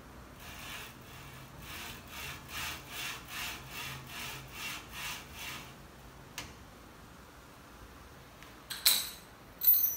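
Bed carriage of a home-built CoreXY 3D printer moving along its metal lead screw and rails: a rhythmic sliding rub, about two and a half strokes a second for some five seconds, over a low steady hum. Two sharp, loud clicks come near the end.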